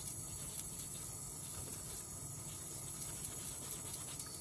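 Stain-remover pencil rubbed back and forth over a wet cotton T-shirt, a soft scratchy rubbing, with a tap running into the sink.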